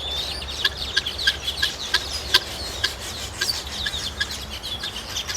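Birds calling: a dense, rapid run of short, high chirps and clucks.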